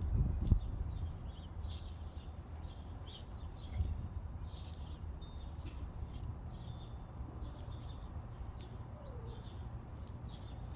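Small birds chirping in the background: a steady run of short, high chirps, a few each second, over a low rumble. There is a soft thump near the start and another about four seconds in.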